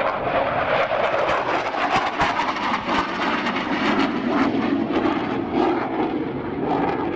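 Dassault Rafale fighter jet flying overhead, its twin Snecma M88 jet engines a loud, steady noise with an irregular crackle.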